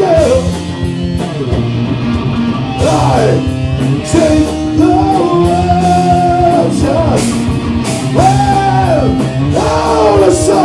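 Live rock band playing loud: electric guitar, bass and drums, with a melody line that slides and bends in pitch over a steady low bass.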